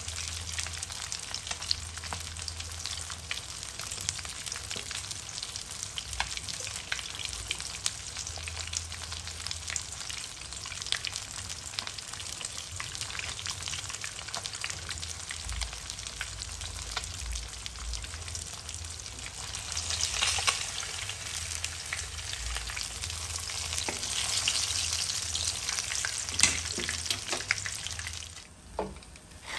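A whole fish shallow-frying in hot oil in a nonstick pan: a steady sizzle full of small pops and spits, swelling louder twice in the second half. There is a sharp tap near the end, then the sizzle drops away.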